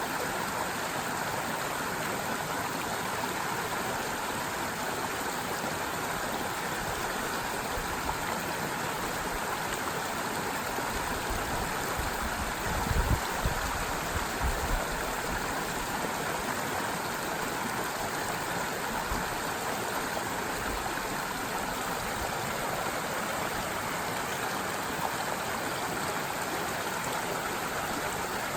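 Forest stream flowing steadily over rocks, an even rushing and babbling of water. A few low thumps break in about halfway through.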